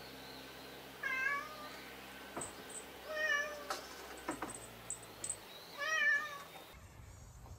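A domestic cat meowing three times, each meow short and separated by about two seconds, with a few light knocks in between.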